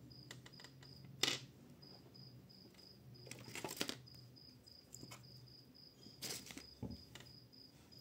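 Small plastic-and-metal USB-C adapters handled on a wooden tabletop: a few light clicks and taps as they are picked up and set down, the sharpest about a second in. A faint high chirp pulses about four times a second in the background.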